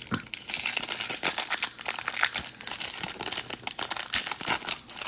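Plastic wrapper of a baseball card pack crinkling as it is torn open and handled, a dense run of crackles.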